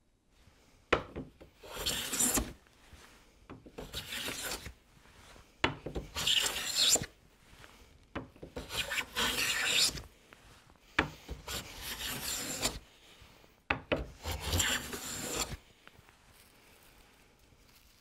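Hand smoothing plane with a high-angle blade taking about six push strokes across dense, interlocking-grained marblewood, each a scraping hiss of a second or two as the shaving comes off. Most strokes start with a sharp knock as the plane is set onto the board. These are test cuts on a hard wood that takes a hard push to cut.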